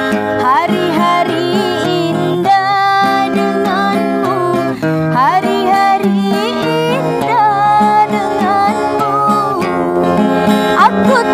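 A woman singing a slow love song with sliding, wavering held notes, accompanied by a strummed acoustic guitar.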